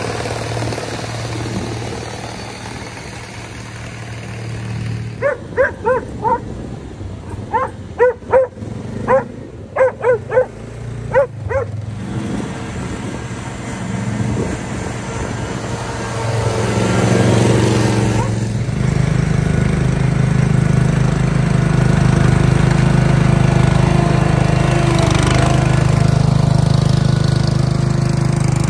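Small engines of riding mowers and garden tractors run as the machines drive past one by one. A riding mower's engine grows louder about two-thirds of the way through as it comes close. Starting about five seconds in, a dog barks about a dozen times in quick succession.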